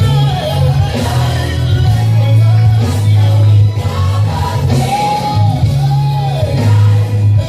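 Gospel praise-team singing over band music with a heavy, sustained bass line, the voices rising and falling in long held phrases.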